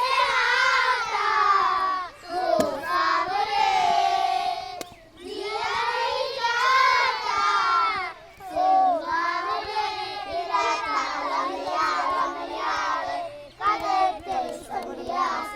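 A group of young children's voices, shouting and singing together in loud, high-pitched bursts that break off briefly a few times.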